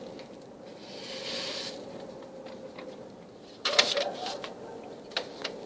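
Bird feed being poured into a plastic bird feeder: a short rustling hiss of grain about a second in, then a cluster of clicks and knocks on the plastic a little past the middle, and a few single clicks near the end.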